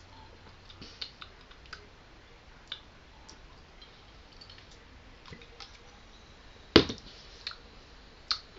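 Small scattered clicks while someone drinks from a glass Ramune soda bottle, then one sharp knock near the end as the bottle is lowered and set down.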